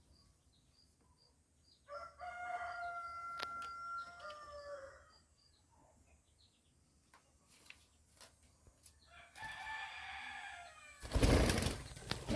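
Pet dove giving a long drawn-out call about two seconds in, and a second, weaker call about nine seconds in. Near the end comes a loud burst of rustling noise.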